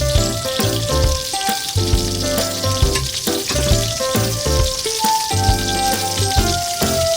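Background music with a steady beat, over the continuous sizzle of food frying in a pan.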